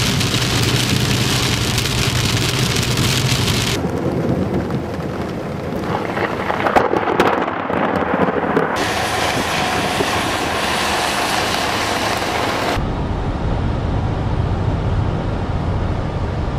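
Thunderstorm: steady heavy rain with thunder. The sound changes abruptly three times, as separate recordings are cut together, and a few louder cracks come about halfway through.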